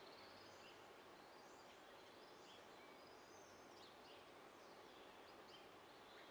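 Near silence: faint background hiss with small birds chirping in the distance, short high calls and quick down-slurs scattered through.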